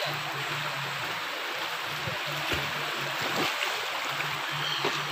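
Shallow river rushing over rocks: a steady rush of running water.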